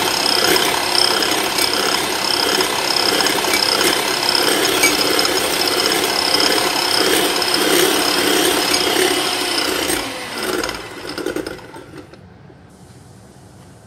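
Electric hand mixer running steadily, its beaters whipping cream in a ceramic bowl until it doubles in volume; about ten seconds in the motor is switched off and winds down.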